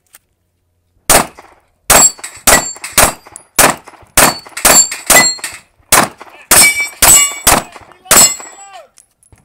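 Glock 19 9mm pistol fired in a fast string of about thirteen shots, starting about a second in and running for some seven seconds. Many hits are followed by the ringing clang of steel plate targets.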